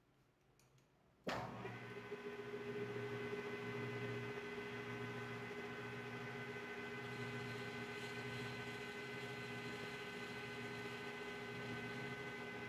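Metal lathe switched on about a second in, then running steadily, its motor and gearing giving a steady whine made of several tones over a pulsing low hum, while the tool cuts the spinning workpiece.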